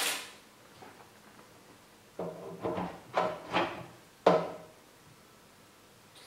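Metal knocks as a chrome flywheel is handled and fitted onto the sewing machine's shaft: a sharp knock at the start, then a run of about five knocks roughly half a second apart a couple of seconds in, the last the loudest.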